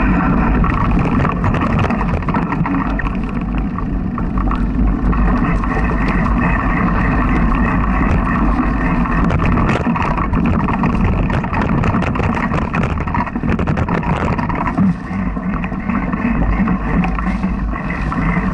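Mountain bike ride heard through a bike-mounted action camera: a steady loud rush of wind buffeting the microphone, with continual clicks and rattles from the bike and camera mount jolting over the bumpy dirt trail.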